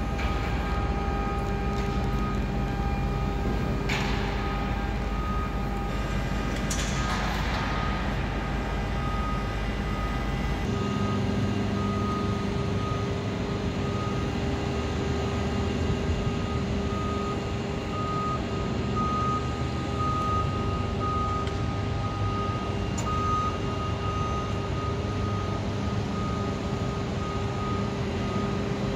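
Mototok Spacer electric towbarless aircraft tug moving a Boeing 787-9, its warning beeper sounding over and over in short repeated beeps above a steady hum. A low rumble underneath stops about a third of the way through.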